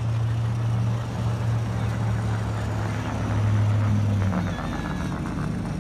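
A motor vehicle's engine running with a steady low hum, which drops away about four seconds in.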